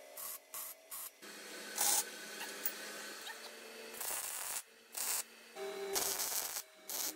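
ARCCAPTAIN MIG205 Pro MIG welder laying welds on bolts along a steel tube: the arc crackles in three short tack bursts, then runs steadily for about three seconds, then stops and starts in several shorter bursts.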